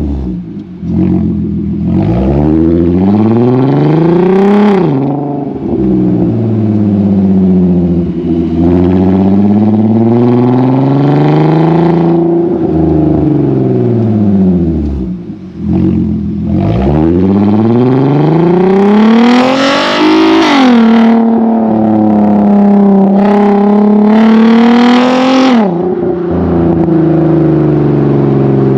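Car exhaust recorded right at its quad carbon-fibre tips while driving: the engine note climbs through the revs in repeated pulls, drops sharply at each gear change and sweeps down as the car slows. The hardest pulls, in the second half, are the loudest and rasp.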